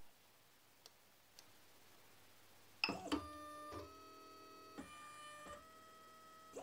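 Tevo Michelangelo 3D printer's stepper motors whining faintly as the printer auto-homes its axes. Steady tones shift pitch several times as one axis after another moves. They start about three seconds in, after two faint clicks.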